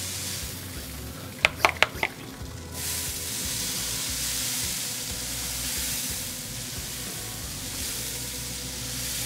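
Spray bottle misting plain water onto ribs in a hot pellet smoker: a steady spraying hiss. About one and a half seconds in come four quick, sharp clicks, then the hiss stops briefly and starts again.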